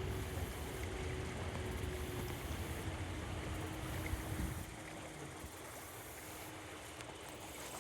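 Outdoor wind buffeting the microphone as a low rumble that eases off a little past halfway, with a faint steady hum underneath.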